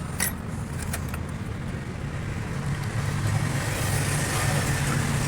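Truck engine running at low speed, a steady low drone that grows a little louder from about halfway through.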